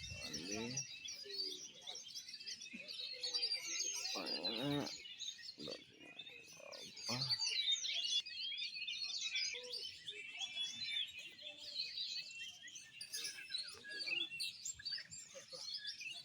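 Several Oriental magpie-robins singing at once in a dense, continuous tangle of quick chirps and whistles. Brief low human voices come through near the start and again about four and seven seconds in.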